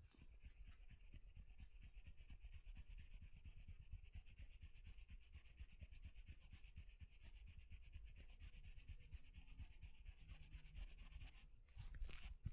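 Hands rubbing quickly over skin in a massage: a faint, steady scratchy friction made of rapid small strokes, with a louder brief rustle near the end.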